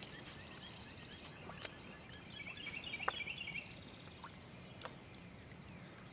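Quiet lakeside ambience: a soft hiss falling in pitch over the first second as fishing line pays out on a cast from a spinning rod, then a bird twittering rapidly for about a second in the middle, with a few faint clicks.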